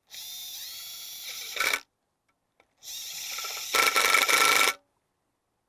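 Cordless drill-driver running in two short bursts, driving screws into a carbon foil fuselage. Each burst is a steady motor whine that gets louder near its end.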